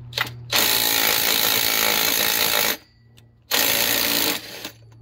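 Impact wrench hammering on a Chinese chainsaw's clutch to loosen it, fitted with a clutch tool. A short blip comes first, then a burst of about two seconds, a pause and a second burst of about a second.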